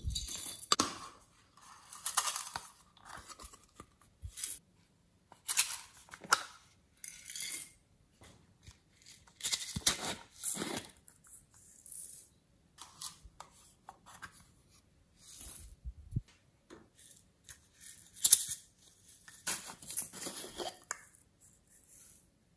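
Small plastic shaker bottles of sequins and confetti shaken over a glass dish of slime: irregular bursts of crisp rattling as the pieces pour out and land, with short quiet gaps between shakes.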